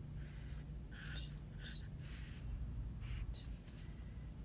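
Sharpie marker drawing on paper: a run of short, scratchy strokes, several a second at times.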